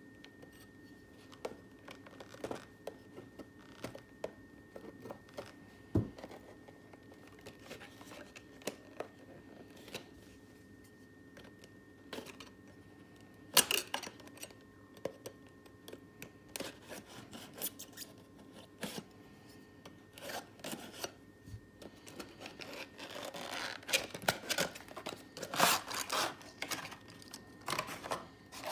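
A kitchen knife cutting and scraping along the sealed seams of a small cardboard box: scattered scrapes and clicks, a knock, and one loud sharp snap about halfway through. Near the end the box is pulled open and the packaging rustles more steadily.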